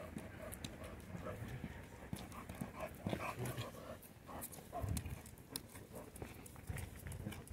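A man and a German Shepherd walking on concrete paving slabs: shuffling footsteps with many irregular, sharp little clicks.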